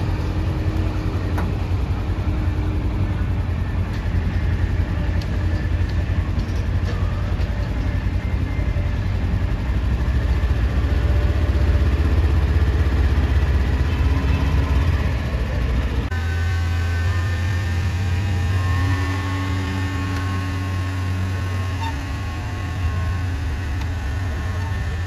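Engines of a modified pulling truck, then a John Deere 4255 pulling tractor, running steadily with a deep rumble and no revving. The sound changes abruptly about sixteen seconds in.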